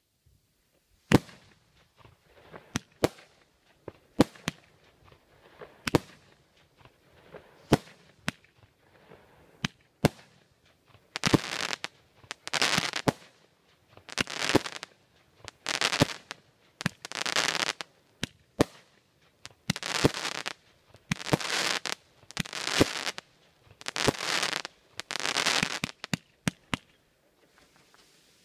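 Fireworks going off in quick succession. For about the first ten seconds there are sharp bangs roughly once a second. From about eleven seconds in, longer crackling bursts of about a second each alternate with sharp bangs.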